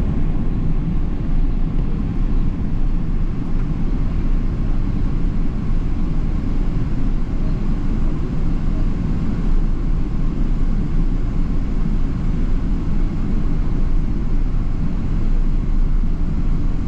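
Steady low rumble of a Boeing 777-300ER airliner heard from inside the passenger cabin: engine and airflow noise, even in level throughout.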